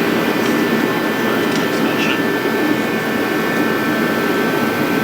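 A loud, steady machine drone with a faint steady whine above it, unchanging throughout.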